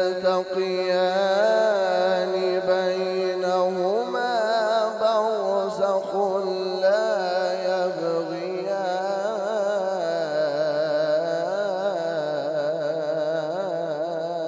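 A male Quran reciter (qari) holding one long, ornamented melodic phrase into a microphone, the pitch wavering on sustained notes. The pitch steps up about four seconds in and sinks gradually later on.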